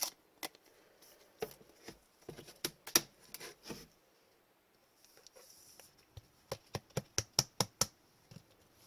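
2020-21 Upper Deck Series 2 hockey trading cards being handled and flipped through one by one: scattered sharp clicks and taps of card on card, then a quick run of about seven snaps in a row.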